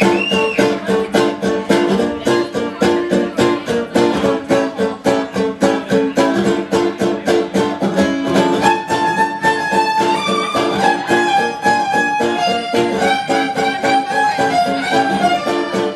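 Recorded music played over a club sound system: a fast, steady strummed or plucked string rhythm, with a held, fiddle-like melody line coming in about halfway through.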